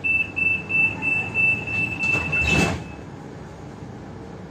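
Door warning beeps on an MTS Siemens Combino Plus tram: a rapid high beeping, about three beeps a second, for nearly three seconds. A short rush of noise comes near the end of the beeps, over the tram's low running rumble.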